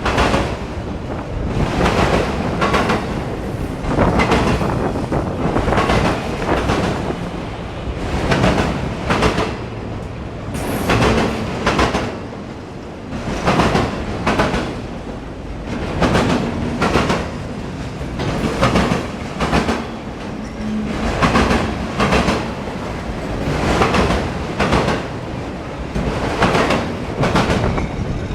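Freight train cars rolling past, their wheels clacking over rail joints in a steady rhythm, about one burst a second and often in pairs, over a continuous rumble.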